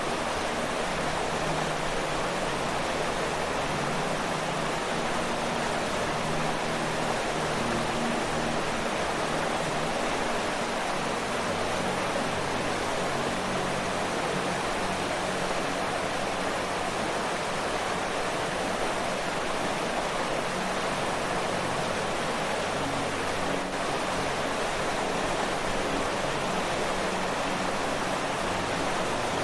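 Waterfall: water falling and rushing in a steady, even hiss without breaks, with a faint low rumble underneath.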